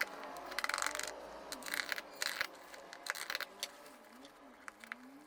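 Packaging being handled during an unboxing: short bursts of rustling and scraping, with a few light clicks and knocks, mostly in the first three seconds.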